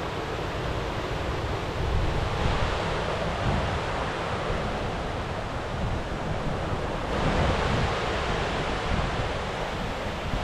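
Steady rush of a mountain stream, with wind buffeting the microphone in uneven low gusts.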